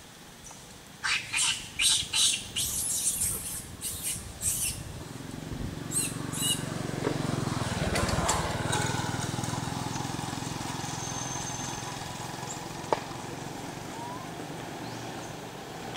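Dry leaf litter crackling and rustling in a quick run of sharp bursts as monkeys shift about on it, then a motor vehicle passing by, its low engine hum building to about halfway and slowly fading.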